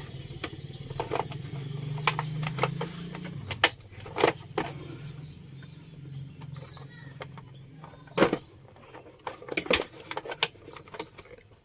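Plastic toy packaging crackling and clicking in the hands as the ties holding the doll in its box are worked loose, with a few short high chirp-like squeaks.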